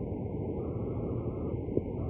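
Steady low rush of road traffic driving through floodwater, tyres churning through standing water on the street, with a single sharp tick near the end.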